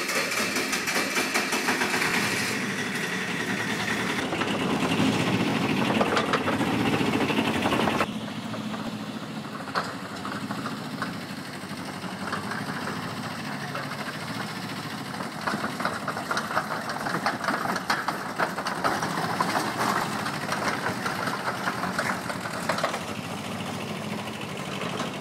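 The engine of a small tracked vehicle running, with a fast steady clatter. About eight seconds in it drops in level and the brightness goes out of it, then runs on steadily.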